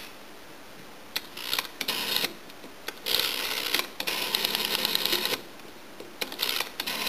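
Rotary telephone dial being turned and spinning back, each return a whirring run of rapid clicks; a few short runs come early on and near the end, with two longer ones in the middle.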